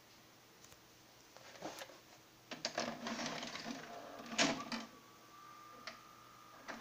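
A VHS cassette pushed into a Toshiba SD-23VE combo deck, its tape-loading mechanism whirring and clattering as it draws the cassette in, with a loud clunk about four and a half seconds in. A steady faint whine then sets in, with a few light clicks, as the deck goes into play.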